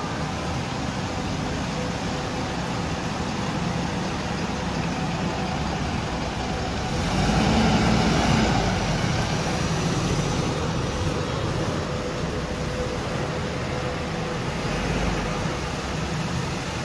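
A bus driving through deep floodwater: a steady rush of water and engine noise that swells louder about seven seconds in, then eases back.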